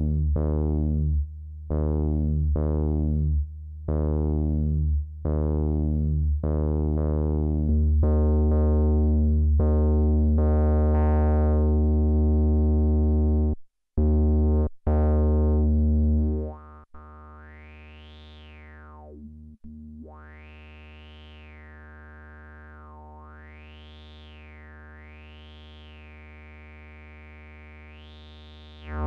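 Akai Rhythm Wolf's analog bass synth playing a low buzzy note, first repeated about every 0.8 s with each note fading from bright to dull, then held as the filter opens. About halfway through it drops in level, and the filter cutoff and resonance are swept up and down in whistling glides.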